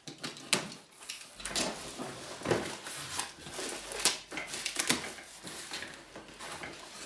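Cardboard packaging being opened and its contents handled: irregular rustles, knocks and clicks, the loudest about half a second, two and a half, four and five seconds in.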